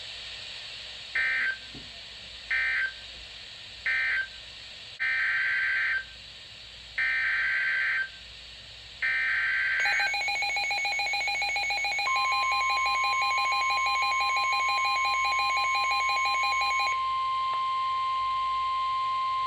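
Emergency Alert System SAME data bursts: three short warbling bursts (the end-of-message code for the previous alert), then three one-second header bursts announcing the next alert. Then the alert tones begin: a fast-pulsing electronic beep from about ten seconds in, joined from about twelve seconds by a steady high weather-radio warning tone that continues after the beeping stops.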